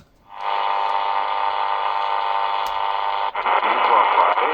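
XHDATA D-219 portable radio's loudspeaker on medium wave: loud static hiss with steady whistles starts just after the start. About three seconds in a click marks a change of frequency, and rougher static follows as a weak station begins to come through.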